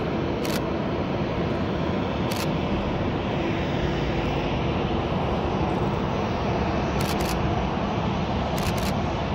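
Boeing 737-800's CFM56-7B turbofan engines running at taxi thrust: a steady jet rumble and hiss with faint steady tones.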